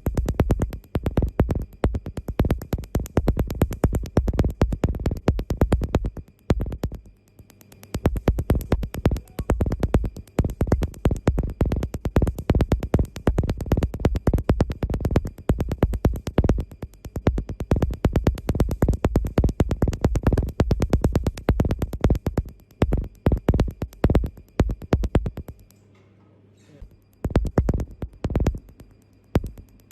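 Tattoo-removal laser firing, a rapid train of sharp snapping clicks, several a second. The clicks break off briefly about seven seconds in and stop for a couple of seconds near the end before starting again.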